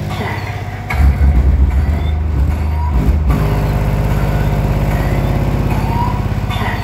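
Bass-heavy music played loud through two Bomber Upgrade 12-inch 350 W RMS subwoofers in a car's sound system, with a fast, even pulse in the bass. The deepest bass comes in hard about a second in and eases off around the middle.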